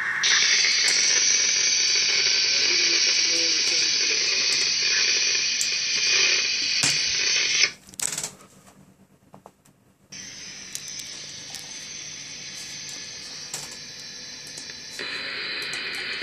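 Static hiss from an RTL-SDR radio receiver's demodulated audio as it is tuned between signals, played through the laptop speaker. The hiss cuts out for about two seconds, comes back quieter, then changes tone near the end.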